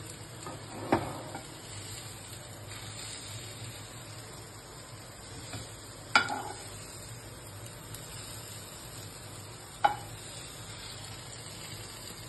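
Stir-fried vegetables sizzling softly in a non-stick frying pan as a wooden spatula stirs and scoops them out, with three sharp knocks of the spatula against the cookware a few seconds apart.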